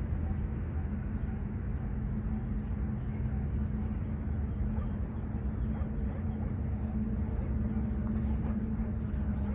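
Steady low outdoor rumble with a constant low hum running through it and a faint high-pitched whine above, unchanging throughout.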